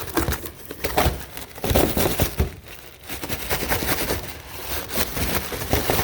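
Packaging crinkling and rustling in uneven bursts as a parcel is opened by hand.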